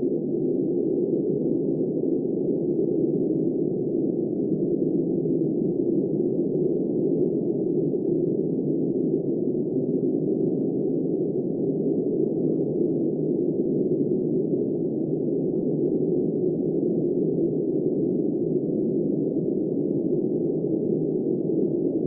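Snowstorm wind blowing without a break: a low, steady rush with no high hiss and no gusts or knocks.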